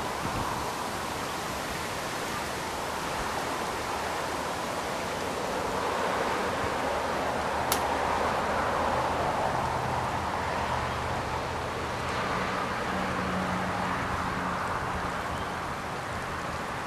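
Shallow creek water rippling over a riffle, a steady rush, with road traffic in the background from a nearby bridge; a low vehicle hum joins about twelve seconds in. One sharp click near the middle.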